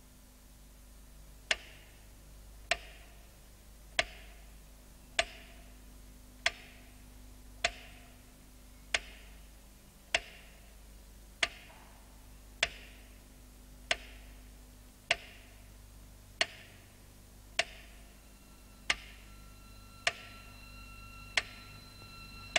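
Wooden pyramid clockwork metronome ticking slowly and evenly, about one tick every one and a quarter seconds, seventeen ticks in all. A faint steady high tone comes in near the end.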